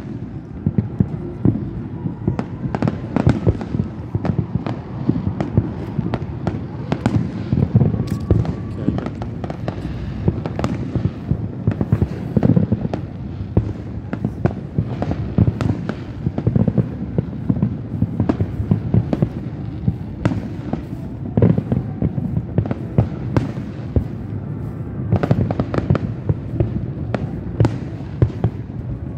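Fireworks going off in quick succession: many sharp bangs and crackles over a constant low rumble of overlapping booms.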